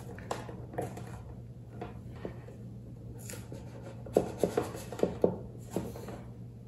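Hands rubbing and pressing along a plastic model ship hull, with a few light clicks and knocks of the plastic toward the end, over a low steady hum.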